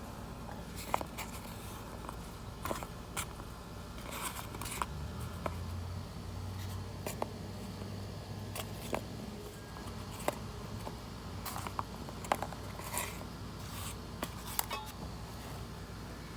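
Scattered light clicks, taps and short scrapes over a steady low hum: hands handling the motorcycle tire and the pulled-out rubber tire plugs.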